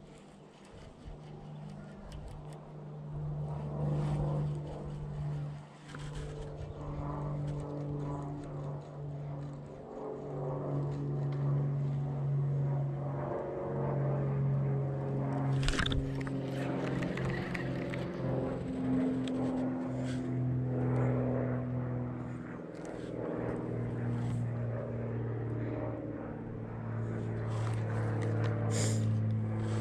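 A steady engine drone whose pitch drops in steps over the half-minute, with scattered light clicks from a baitcasting reel being handled and cast, one sharper click about halfway through.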